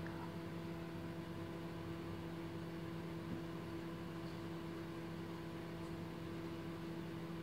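Steady low machine hum over a faint hiss, as from a small motor running in the room.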